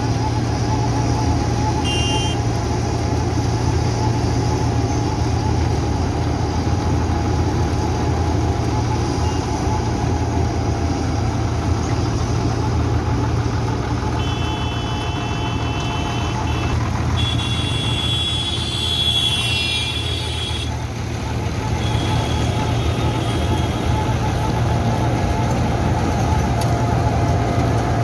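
Wirtgen W 100 H cold milling machine running steadily, its diesel engine humming under the constant grinding of the milling drum tearing up asphalt as the conveyor loads a tipper truck. A high-pitched vehicle horn sounds twice around the middle, the second time longer.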